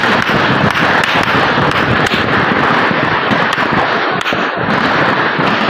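Many sharp, firecracker-like bangs and cracks go off in quick succession over a loud, continuous noisy din.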